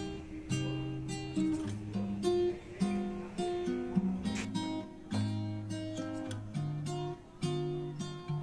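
Background music: an acoustic guitar picking and strumming chords, the notes changing every half second or so.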